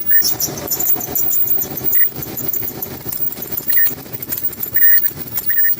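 Front-load clothes dryer running, its drum making a steady rumble, with short high squeals that come back every second or so from the front of the drum, which the owner traces to worn front drum sliders.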